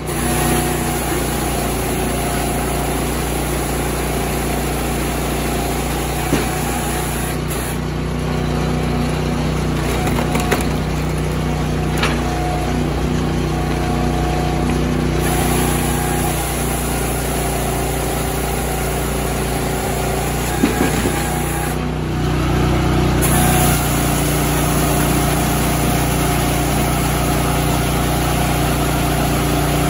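Firewood processor's small engine running steadily while the machine feeds, cuts and splits logs, with a few sharp knocks of wood and metal. The running grows louder about three-quarters of the way through.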